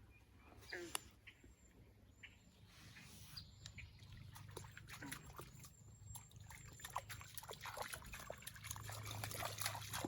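Faint small splashes and trickling water at the edge of a pond, a patter of little clicks that gets busier and louder from about four seconds in.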